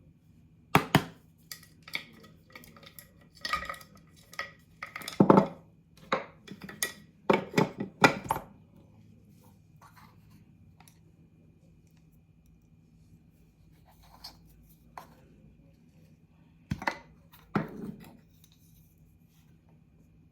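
Kitchen clatter while chicken wings are seasoned: a run of sharp knocks and clicks of containers and utensils being handled, then a long pause and two more knocks near the end.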